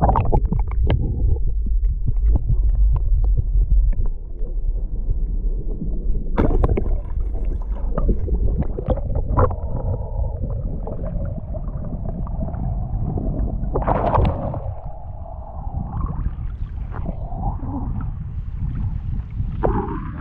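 Muffled sound from an underwater camera held in shallow water: a deep, steady rumble of water washing over the housing, with scattered knocks and clicks and a faint wavering tone through the middle.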